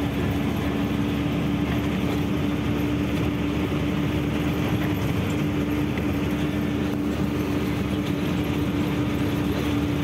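Truck running on the road: a steady engine and road drone with one constant hum, even in loudness.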